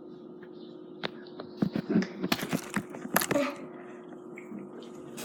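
Noise putty being squeezed and poked, giving a quick run of wet squelches and crackling clicks that starts about a second in and lasts about two and a half seconds.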